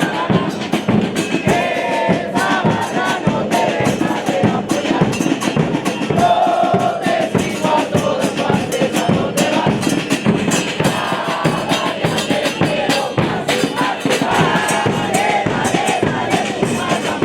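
Football supporters chanting and singing together in unison, with drums beating steadily under the chant.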